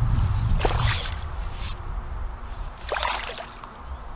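Two brief water splashes from a hooked F1 carp thrashing at the surface while it is played on the pole, one about a second in and one about three seconds in. Wind rumbles on the microphone in the first second.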